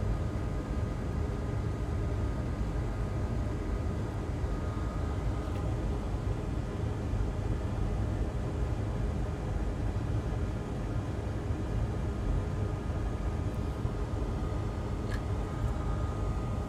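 Steady low hum and hiss of running machinery, with a faint steady high whine over it and a few faint ticks near the end.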